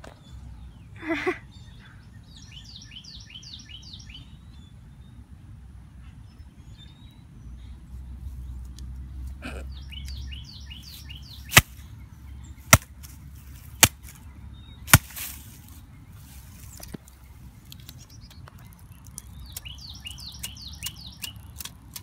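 A bird singing the same short trill of quick, falling notes three times, roughly every eight seconds. Midway, four sharp clicks come about a second apart and are the loudest sounds.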